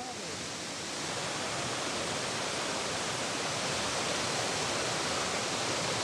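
Steady rushing of water from Fujimoto Falls, a two-tier waterfall about 21 metres high in its upper drop, falling into a plunge pool. An even hiss-like rush with no pattern, growing slightly louder in the first second and then holding steady.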